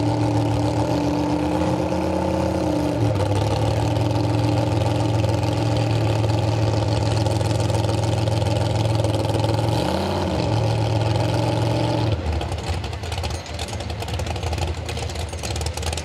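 Big truck engine running loud at steady revs, revving briefly up and back down about ten seconds in; about two seconds later the steady engine note drops away, leaving rougher engine and crowd noise.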